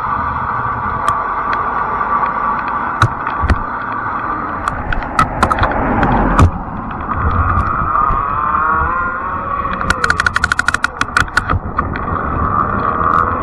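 Fat-tire electric bike riding on pavement: a steady electric motor whine that rises in pitch as the bike picks up speed, over road and wind noise, with scattered clicks and a quick run of rattling clicks about ten seconds in. A car passes close by about six seconds in.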